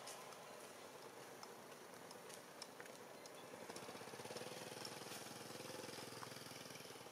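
Faint engine running with an even pulse, a little louder through the middle, over a steady background hiss.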